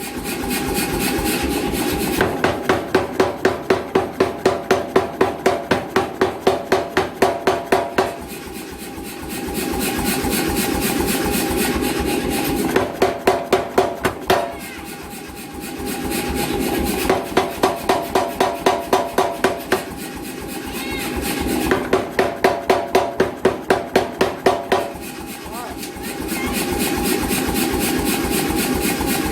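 88 lb C41 air power hammer running steadily, with four runs of rapid ram blows at about four a second as the rounding hammer head is forged. The machine runs on steadily between the runs of blows.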